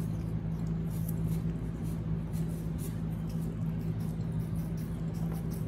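Faint scattered crisp clicks and scraping over a steady low hum.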